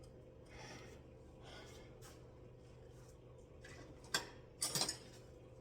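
Quiet work noise: soft rustling over a faint steady hum, then sharp metal clinks about four seconds in and again just before the end, as the axle nut is threaded back onto the CV axle stub by hand.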